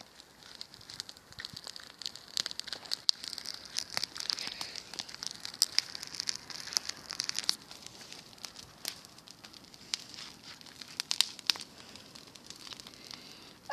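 Bonfire of dry grass and garden waste crackling, with many sharp snaps that come thickest in the middle few seconds and thin out toward the end.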